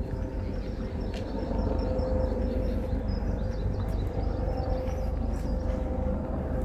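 City park ambience: a steady low rumble of traffic and trains with a constant hum, and small birds chirping in quick high runs over it.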